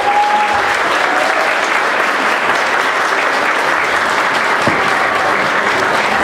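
Audience applauding steadily, a hall full of clapping.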